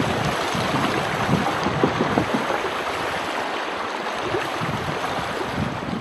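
Steady rush of shallow river water flowing around a bamboo raft, with wind buffeting the microphone in low rumbles.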